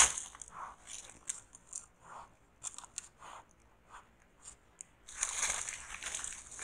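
Lowland tapir chewing inajá palm fruit close to the camera: irregular crunching and cracking bites, thicker near the end.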